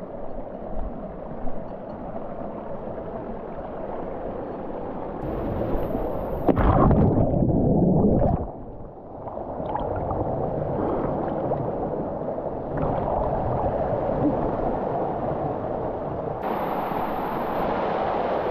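Canyon creek water running and gurgling, with a louder rush about six and a half seconds in that drops off suddenly near eight and a half seconds.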